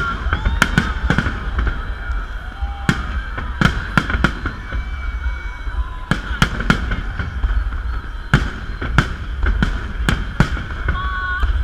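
Fireworks salute going off: a rapid series of sharp bangs at uneven intervals, about twenty in all, over a steady low rumble.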